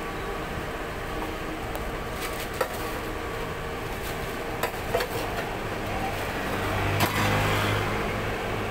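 Metal fry scoop knocking a few times against a stainless-steel tray as french fries are scooped into a paper bag, over a steady background hum that grows louder late on.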